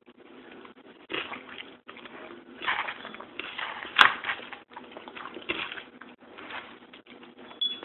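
A cat eating from a small bowl close to the microphone: irregular chewing and mouth noises in short bursts, with a sharp click about four seconds in.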